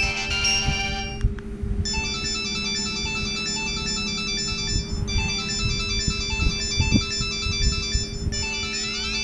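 Samsung GT-E1195 mobile phone playing its built-in ringtones: one tone ends about a second in, and a new electronic ringtone melody starts, repeating its short phrase about every three and a half seconds, over a steady low hum.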